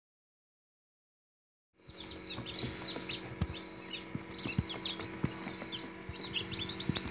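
Silence for about the first two seconds, then a crowd of newly hatched chicks peeping constantly, with high, short, falling chirps over a steady low hum.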